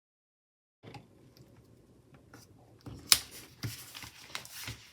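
After a brief dead silence, paper and sticker sheets are handled, with a few sharp clicks or snips; the loudest comes about three seconds in.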